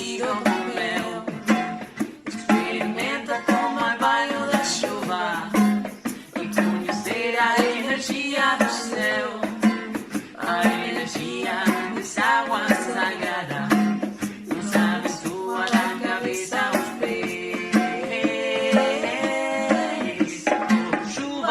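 Song with a voice singing over a plucked acoustic guitar, continuously and at a steady level.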